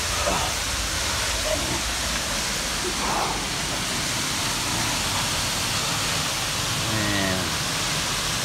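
Steady rushing of a large waterfall, Mooney Falls, pouring into the pool below, an even hiss with no break.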